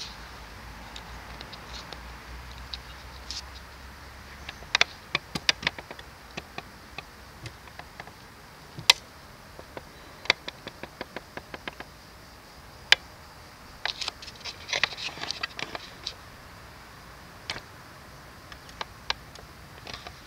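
Scattered sharp clicks and ticks, irregular and sometimes in quick clusters, over a faint steady hiss.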